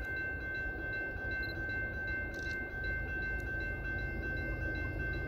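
CSX freight train approaching slowly in the distance: a steady low rumble with several steady high ringing tones above it.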